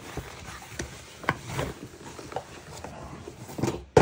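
Scattered light knocks and rustling, with a sharper, louder knock near the end, like objects being handled and set down.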